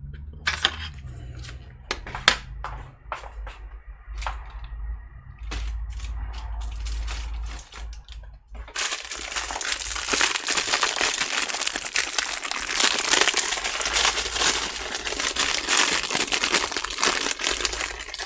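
A few sharp clicks and knocks of small parts being handled, then from about nine seconds in a dense, continuous crinkling and rustling of packaging material being handled.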